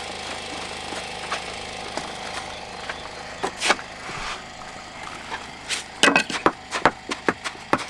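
Sharp taps and knocks of stones being struck and set into mortar in a stone wall, a few scattered at first, then a quick run of several near the end, over a steady hum.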